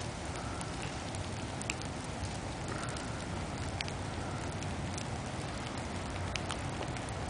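Wet snow falling: scattered light ticks of flakes landing over a steady hiss and low rumble.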